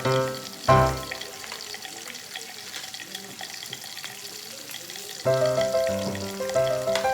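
Background music breaks off about a second in, leaving pork belly sizzling on a grill as a fine steady hiss with small crackles; the music comes back about five seconds in.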